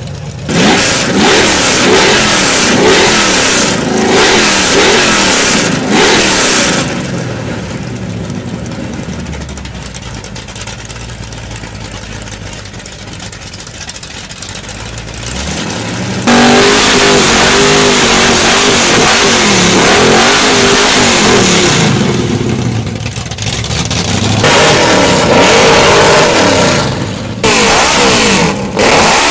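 Show cars with loud exhausts revving and accelerating hard, several in turn, engine pitch climbing and dropping through the gears. A quieter stretch of engine noise in the middle, and the sound changes abruptly in places, as at cuts between clips.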